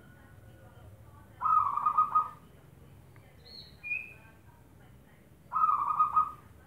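Zebra dove (perkutut) cooing: two rippling, stuttering phrases about four seconds apart, with a brief higher chirp between them.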